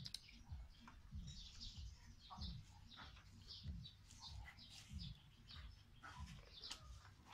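Faint sounds of a kitchen knife paring the green rind off a half watermelon: light scraping clicks with a regular soft low thump about every second. Bird chirps come and go in the background.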